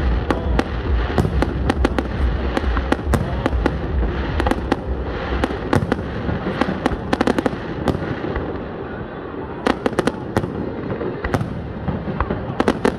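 Aerial fireworks shells bursting in quick succession: many sharp bangs and crackles over a continuous low rumble. The bangs thin out briefly past the middle, then come in a dense cluster.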